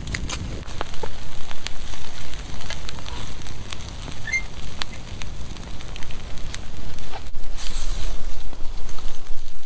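Wood campfire of logs burning, crackling with irregular sharp pops over a low rush of flame.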